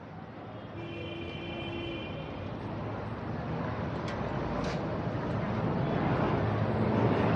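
City street traffic at night: a steady wash of road noise that grows steadily louder as a vehicle approaches, with a faint held tone for about a second near the start.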